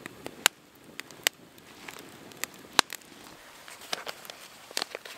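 Wood campfire crackling, with scattered sharp pops, the loudest about half a second, a second and a quarter and nearly three seconds in.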